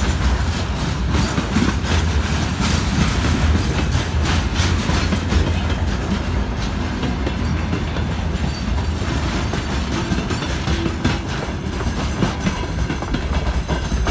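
Freight train wagons rolling past, with a steady rumble and the wheels clattering over rail joints.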